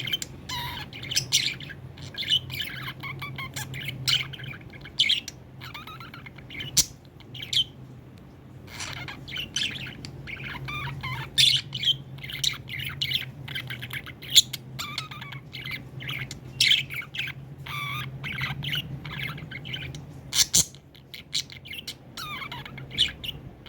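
Budgerigar chirping and chattering in quick, irregular short calls, over a steady low hum.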